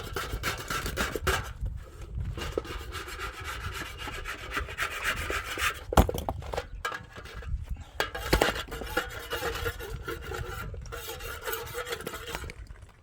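Rapid, irregular scraping or rasping strokes, with a sharp knock about six seconds in and another a little after eight seconds.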